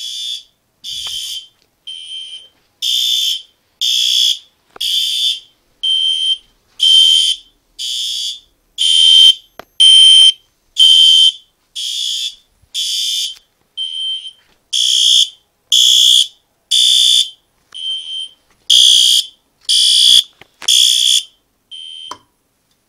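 Fire alarm horn sounding in even, high-pitched pulses about once a second after a pull station is pulled. Near the end the pulses cut off as the audible silence switch cuts power to the horn circuit, while the strobes stay on.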